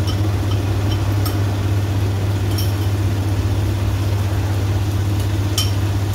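Steady low hum, with a few faint light clicks now and then.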